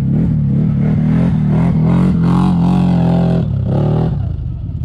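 ATV engines: a steady low idle throb underneath while a quad climbing a steep dirt slope revs under load, its pitch rising and falling. The revving eases off about three and a half seconds in, surges once more, then drops away, leaving the idle.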